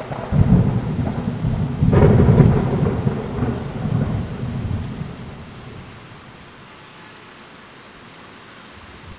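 Thunder rumbling over steady heavy rain, with a sharp crack about two seconds in. The rumble dies away after about five seconds, leaving only the even hiss of the rain.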